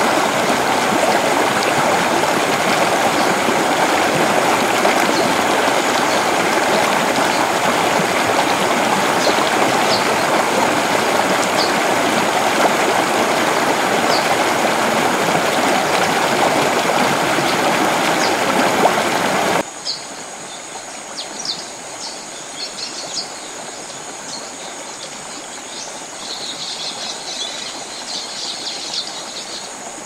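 Waterfall pouring onto rocks and rushing over a rocky streambed, a loud steady rush of water. About two-thirds of the way through it cuts off suddenly to a quieter, thinner water sound with birds chirping and a high buzz near the end.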